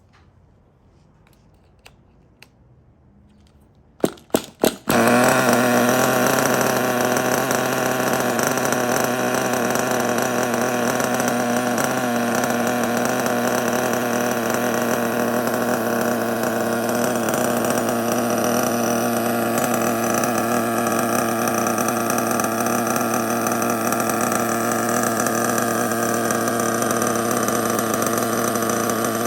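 HPI Nitro Star S-25 nitro engine in a Savage 25 RC monster truck, cold started. After a few faint clicks it gives three quick loud bursts as it is cranked, catches about five seconds in, and then runs steadily with a buzzing, chainsaw-like note.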